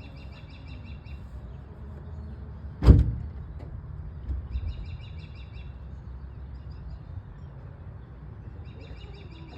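A single sharp knock about three seconds in, the loudest thing here, followed by a softer knock a second and a half later, over a steady low rumble. A bird trills in short bursts three times, at the start, just before the knock and near the end.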